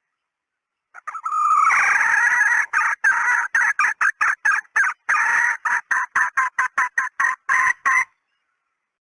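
Female red junglefowl (hen) cackling call, used as a hunter's decoy call: a drawn-out note about a second in, then a quick run of short clucks, about four a second, that stops abruptly near the end.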